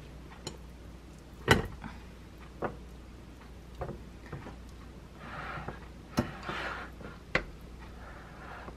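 Silicone spatula scraping thick strained Greek yogurt off cheesecloth into a glass bowl: a few soft scraping swishes, mostly in the second half, among about six sharp clicks and taps, the loudest about a second and a half in.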